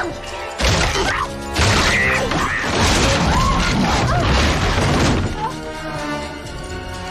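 Dramatic horror film score mixed with crashing and shattering glass, with loud hits about half a second and a second and a half in, and wailing cries rising and falling over the music.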